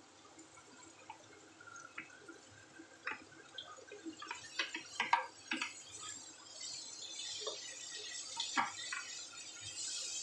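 Chopped green bell pepper tipped from a plastic container into a hot wok, with a run of light taps and clicks as the pieces drop and a spatula scrapes the pan. A sizzle builds from about two-thirds of the way in as the vegetables fry.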